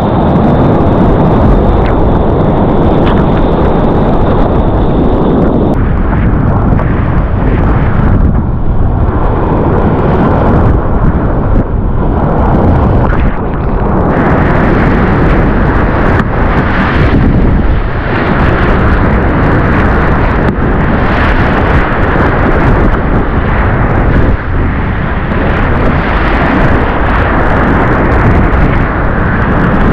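Loud, steady rushing of breaking surf and whitewater around a surf kayak riding a wave, with wind buffeting the camera microphone.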